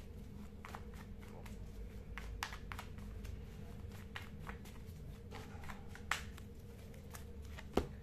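A tarot deck being shuffled by hand: quiet, irregular flicks and slaps of the cards against one another over a faint steady hum.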